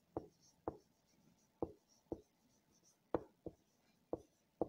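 Felt-tip marker writing on a whiteboard: a run of about eight short, sharp taps and scratches, uneven, about two a second, as the pen strikes and drags through each letter stroke of a word.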